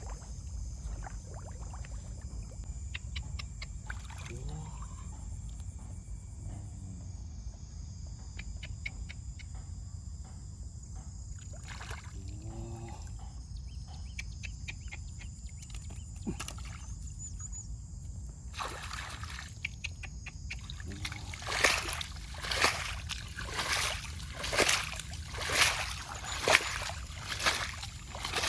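Water sloshing and trickling, then a run of splashes about once a second near the end.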